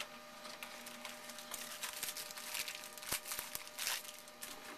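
Trading cards and their foil pack wrapper being handled: an irregular run of crinkling rustles and small clicks, over a faint steady electrical hum.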